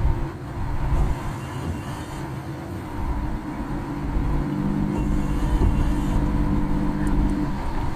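A car being driven, heard from inside the cabin: a low engine and road rumble. A steady engine hum comes in for several seconds partway through.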